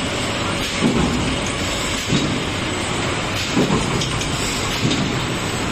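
Six-colour automatic screen printing machine running: a steady mechanical noise with a low thump repeating about every one and a half seconds.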